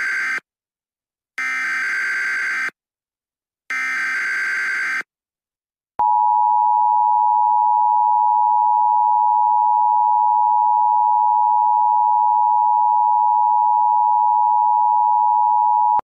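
Emergency Alert System SAME header: three short bursts of digital data tones about a second apart, the first already under way. About six seconds in, a long steady attention tone follows and holds for about ten seconds.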